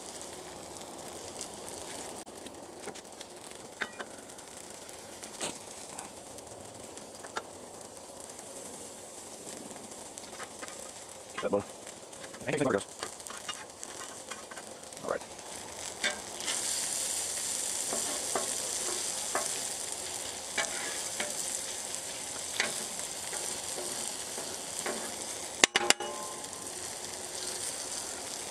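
Bacon, sausage links, pancakes and vegetable hash sizzling on a Blackstone flat-top griddle, with a few sharp taps and scrapes of a metal spatula on the steel. The sizzle grows louder about halfway through.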